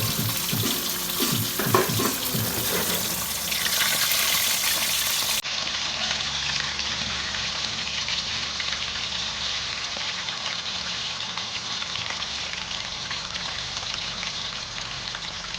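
Steady rushing hiss of kitchen cooking, with a few clatters in the first couple of seconds. It breaks off at an abrupt cut about five seconds in and goes on as a steadier, duller hiss.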